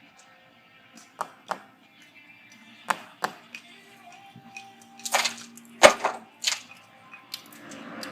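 Sharp knocks and cracks as bricks are taken down from an old brick chimney, about nine strikes at irregular intervals, the loudest a little before the end. Radio music plays faintly underneath.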